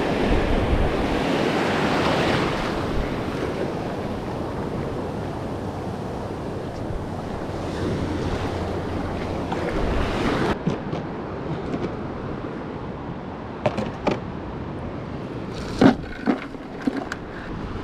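Breaking surf washing in, with wind on the microphone. About ten seconds in the surf drops away and a string of sharp clicks and rattles follows, the loudest near the end: a cast net and its weights being handled.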